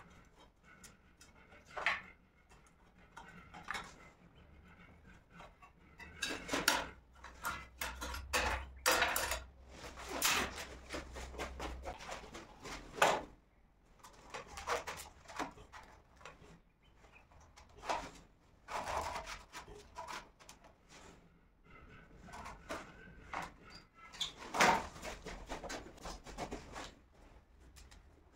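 Hand tools and ceramic tile knocking, clicking and scraping in irregular bursts as a corner tile is cut and fitted, busiest from about six to thirteen seconds in and again near the end.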